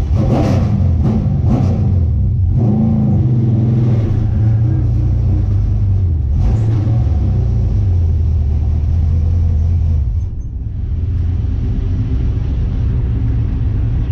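Stock car's engine heard from inside the cockpit, running with a steady low rumble while on track. It eases off briefly about ten seconds in, then picks back up.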